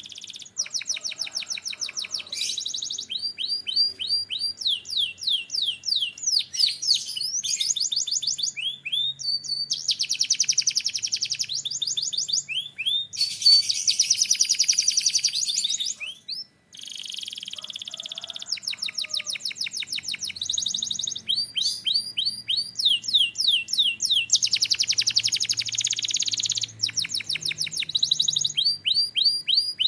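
Domestic canary singing a long, varied song of fast repeated trills and rapid rising and falling notes, broken by a short pause about halfway through.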